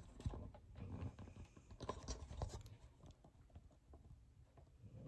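Faint handling noise: light scratches, rustles and small clicks as the camera is moved about. The noise is busiest in the first few seconds and then dies down.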